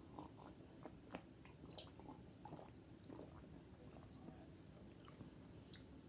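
Faint mouth and swallowing sounds of someone drinking juice from a plastic cup: soft scattered clicks and gulps over near silence.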